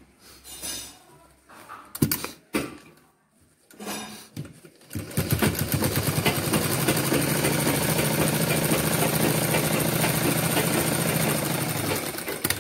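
A few short knocks and rustles of cloth being handled, then about five seconds in a sewing machine starts up and runs at a steady fast stitch, sewing down a folded hem in cotton cloth, until it stops near the end.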